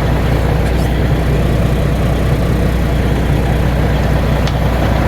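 Caterpillar 3406E (C14) inline-six turbo diesel engine running steadily at a constant speed, with a deep, even drone and no revving.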